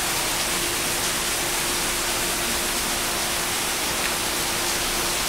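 Heavy tropical downpour: the steady, even hiss of pouring rain. A faint steady hum comes in at the start and runs underneath.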